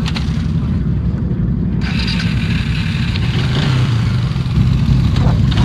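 ATV engine idling close by, a steady low rumble; about two seconds in a steady hiss joins it.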